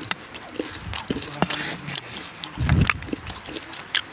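Close-miked chewing and wet mouth smacking, with sharp clicks, a crunchy patch about one and a half seconds in, and a low thump near three seconds.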